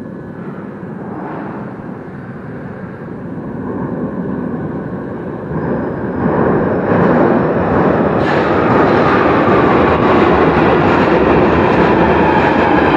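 London Underground Northern line 1995-stock train approaching through the tunnel and running into the platform. Its rumble grows louder through the first half and then stays loud, with a whine that falls slowly in pitch as the train slows to stop.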